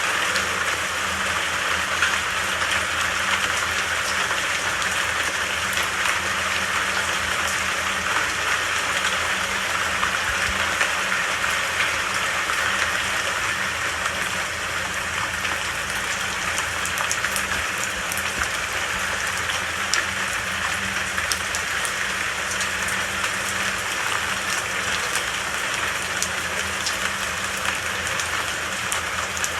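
Steady rain falling: an even hiss with many scattered drop taps.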